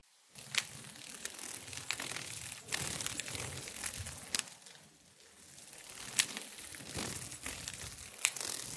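Rustling, crackling noise with scattered sharp clicks about once a second, dropping away briefly about five seconds in. There is no animal call.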